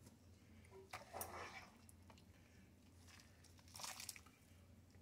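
Near silence over a faint low hum, broken by two faint, brief handling noises, about a second in and just before four seconds: metal kitchen tongs lifting cooked spaghetti out of a pot.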